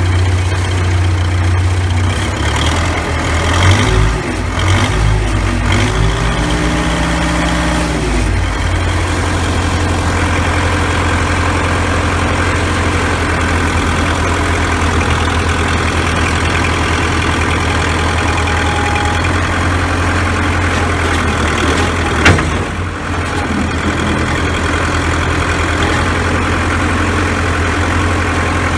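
Case 580B backhoe's four-cylinder diesel engine running, its speed shifting up and down over the first several seconds before settling to a steady run. A single sharp clunk about 22 seconds in.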